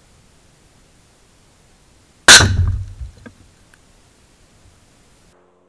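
A single loud explosion about two seconds in, a sharp crack with a low rumble that dies away within about a second, followed by a few faint ticks.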